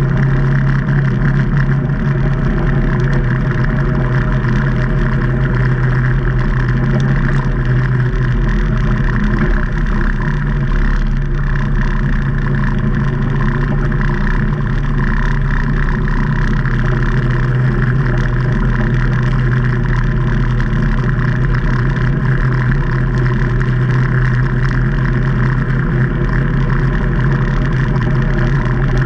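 2019 Can-Am Maverick Trail 800 side-by-side's Rotax V-twin engine running at a steady speed, an even drone with no revving up or down.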